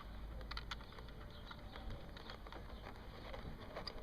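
Faint, irregular small clicks and taps of computer parts being handled by hand, as a 2.5-inch laptop hard drive is fitted into a mini PC's tool-less mount.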